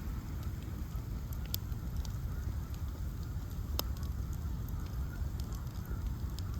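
Bonfire of ash logs burning: a steady low rumble of flames with scattered crackles, and a sharp pop nearly four seconds in.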